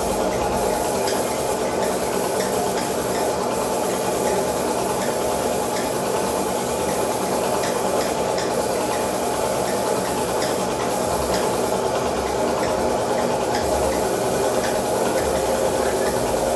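Gravity-feed paint spray gun hissing steadily as compressed air atomises paint onto a motorcycle fuel tank.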